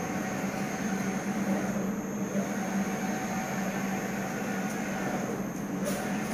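Flatbed UV printer running, its print-head carriage sweeping back and forth over the slab: a steady mechanical hum with a faint high whine.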